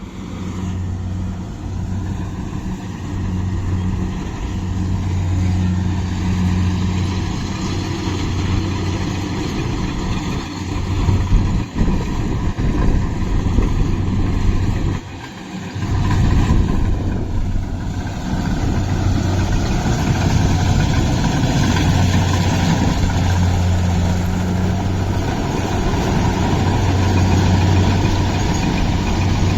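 Kubota rice combine harvester's diesel engine running steadily under load, mixed with the clatter of its machinery as it cuts rice. The sound grows uneven a little before halfway, drops briefly, then settles back to a steady run.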